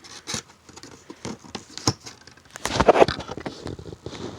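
Cardboard box being handled and worked open by hand: scattered scrapes, taps and rustles, with a louder scraping rustle about three seconds in.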